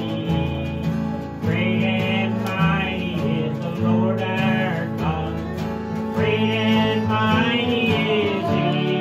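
An older man singing a country gospel song with acoustic guitar accompaniment.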